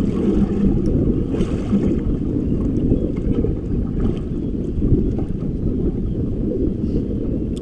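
Wind buffeting the microphone on an open boat: a steady low rumble without pauses.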